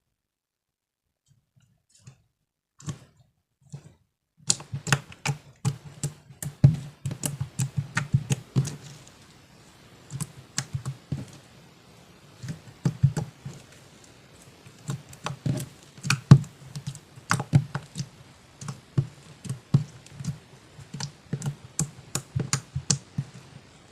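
Slime being kneaded and pressed by hand, giving off quick irregular clusters of clicks and pops from trapped air. A few faint clicks come first, and the clicking thickens about four seconds in.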